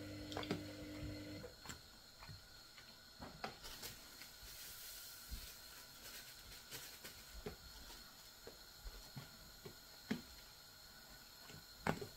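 Faint handling noises while seasonings are mixed in a container: scattered light clicks and taps, with a brief hiss a few seconds in. A low steady hum cuts off about a second and a half in.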